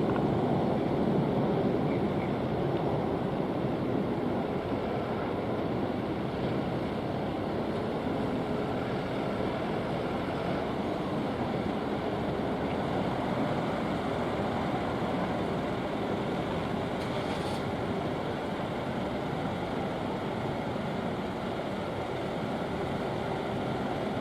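Steady road traffic noise at a street-level crossing: a continuous low rumble of passing vehicles, a little louder at the start and easing off slightly after a few seconds.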